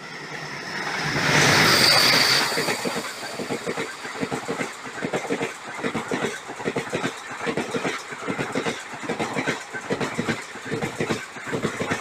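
Express train passing close by on the adjacent track: its diesel locomotive builds to the loudest point about two seconds in, then the passenger coaches run past with a continuous rhythmic clatter of wheels over the rail joints.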